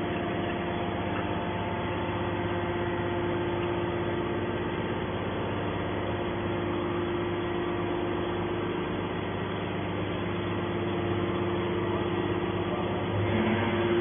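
Hydraulic scrap-metal baler running steadily, its electric motor and hydraulic pump giving an even hum with a few held tones while the ejector ram pushes out a compressed bale of tin cans.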